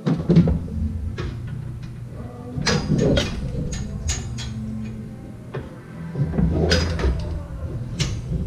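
Metal clanks and knocks as parts are handled inside a Brunswick A2 pinsetter: a string of sharp strikes, the loudest around three seconds in and again near the end, over a low rumble.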